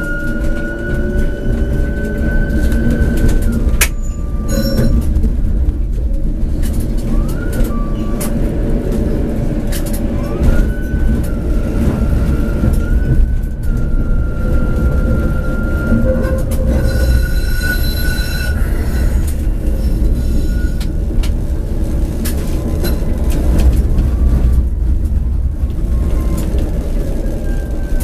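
Tram running through the street, heard from on board: the electric drive whines and rises in pitch as the tram gathers speed, and the wheels click over rail joints and points. About two-thirds of the way through, a high ringing squeal of wheels on the rails is heard.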